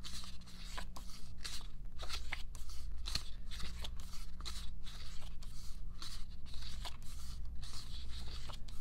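Paper and plastic rustling and crinkling as a K-pop album's packaging and pages are handled: a steady run of quick irregular rubs and crackles, over a faint low hum.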